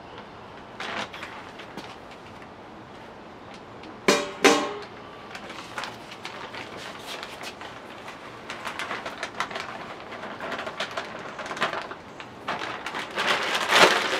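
A plastic bag of sphagnum peat moss crinkles as it is handled, with two sharp sounds about four seconds in. In the second half, peat moss rustles as it pours from the bag into a plastic colander, loudest near the end.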